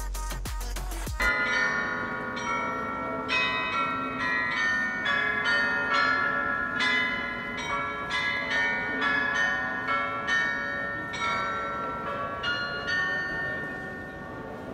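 Electronic background music with a beat cuts off about a second in, giving way to the Munich New Town Hall Glockenspiel: tuned bells struck one after another, about two a second, playing a tune. Each note rings on under the next.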